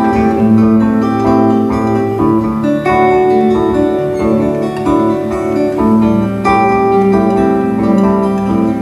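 A live band plays an instrumental passage on electric guitars and saxophone, with sustained chords that change about once a second.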